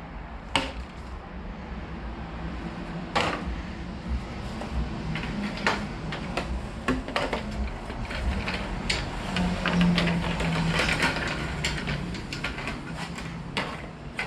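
Scattered sharp clicks and knocks of plastic motorcycle tail-section parts being handled and slid into place, coming thickest about ten to twelve seconds in.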